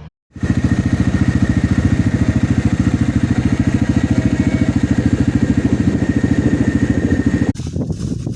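A small engine running steadily with a fast, even pulse; it stops abruptly near the end and a more irregular, clattering sound follows.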